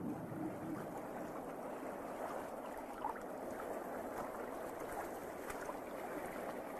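Steady rush of bubbling, gurgling water.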